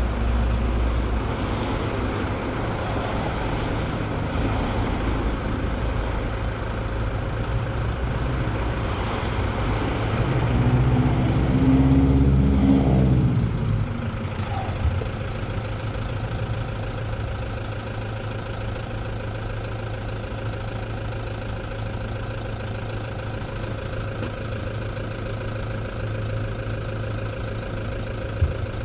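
Road traffic at a stopped junction: engines idling steadily close by. About ten seconds in, a louder vehicle passes, its engine note rising and then falling away by about fourteen seconds.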